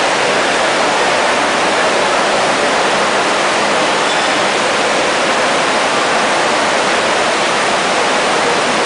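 Water from a large ornamental fountain splashing into its basin, a steady unbroken hiss.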